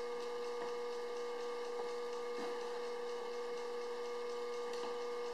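Steady electrical hum with one constant mid-pitched tone, under a few faint, irregular scrapes of a plastic spreader wiping polyester body filler onto the car's panel.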